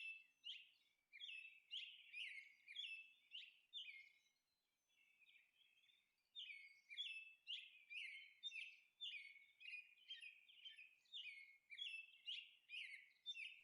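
Faint bird chirping, a steady series of short, high chirps about two a second, pausing for a couple of seconds near the middle.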